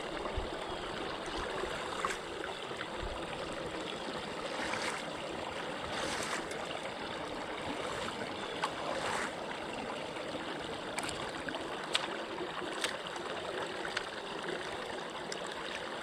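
Pond water rushing steadily down an overflow drain pipe through a canary-cage drain guard, the pipe running freely with the guard raked clear of debris. A few light knocks and splashes come from a plastic leaf rake worked around the guard.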